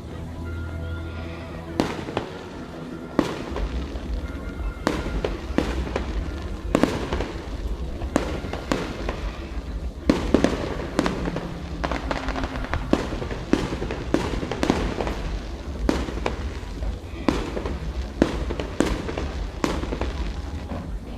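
Fireworks display: a rapid, irregular string of sharp bangs and crackling bursts, several a second at times, over a low steady rumble.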